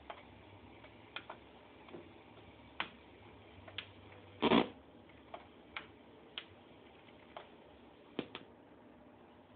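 Scattered sharp clicks of buttons and a toggle switch being worked on a circuit-bent telephone answering machine, about a dozen in all. One louder, short burst of noise comes about four and a half seconds in.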